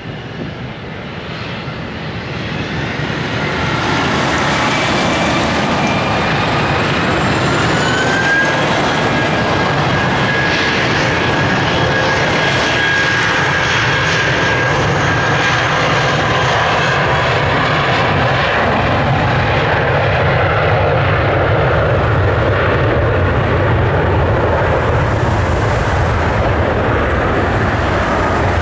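Airbus A320's twin turbofan engines spooling up to takeoff thrust. The sound swells over the first few seconds with a rising whine, then runs loud and steady as the jet accelerates along the runway on its takeoff roll.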